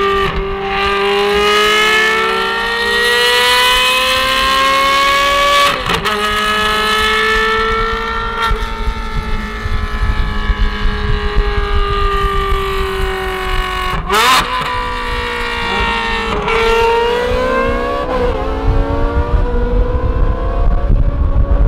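Ferrari 430 Scuderia's V8 with headers and a free-flowing exhaust, running loud under way: its pitch rises as it accelerates and sags as it eases off, broken several times by sharp cracks at the gearshifts, over a low rumble.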